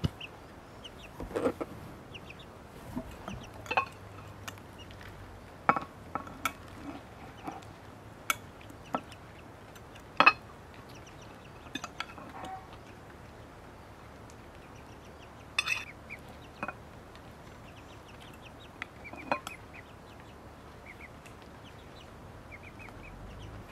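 Scattered clinks and taps of metal spoons against ceramic plates and a glass salad bowl as food is served and eaten, some with a brief ring.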